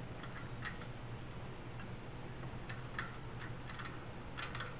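Scattered light metal clicks of a wrench and screwdriver working as the water pump pulley bolts are tightened, over a steady low hum.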